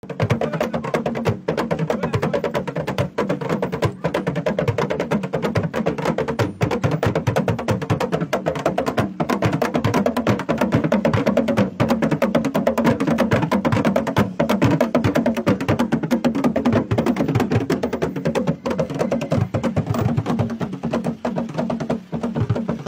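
Percussion music: a dense, fast rhythm of wood-block-like knocks and drums that keeps going without a break.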